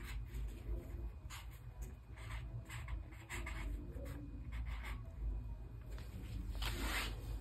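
Marker pen writing on a sheet of paper: a run of short, irregular strokes as a word is written out, over a low steady hum.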